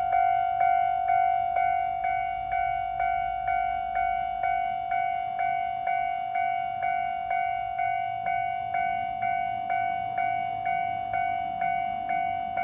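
Japanese railway level-crossing warning alarm ringing: a bell-like tone struck about twice a second, each strike fading before the next.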